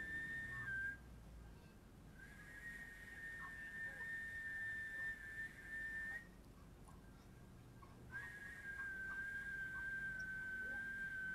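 A steady, high whistling tone, held for several seconds at a time. It breaks off twice, about a second in and again around six seconds in, then comes back.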